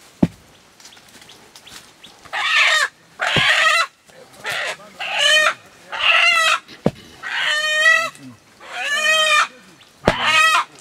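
A bird calling over and over: about eight loud calls, each under a second long, the first two harsher and noisier. A few sharp knocks fall between them.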